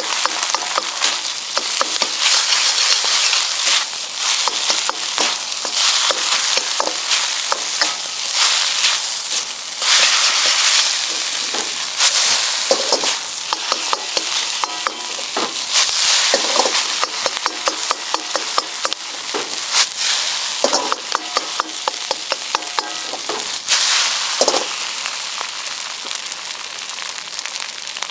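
Fried rice sizzling in an iron wok as it is stir-fried, with a metal ladle scraping and clinking against the pan many times.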